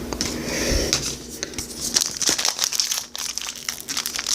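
Plastic trading-card pack wrapper crinkling in the hands, a dense run of short crackles.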